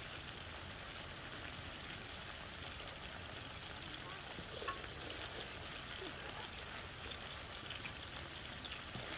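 Meat in a red marinade frying on a flat griddle pan over a portable gas stove: a steady sizzle with small crackles.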